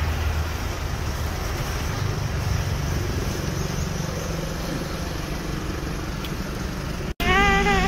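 Steady vehicle running noise: a low engine hum under an even rushing hiss. It cuts off abruptly near the end, giving way to a voice.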